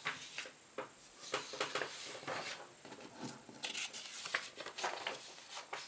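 Sheets of paper being handled and unfolded by hand, in a string of short, irregular rustles and soft taps.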